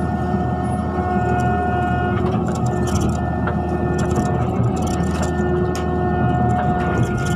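Mini excavator running while digging: a steady engine drone with a constant whine over it, and scattered short clanks and knocks.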